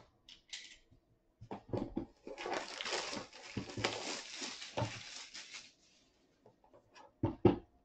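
A trading-card box being opened by hand: packaging crinkling and tearing for about three seconds, then a few light ticks and two sharp knocks near the end.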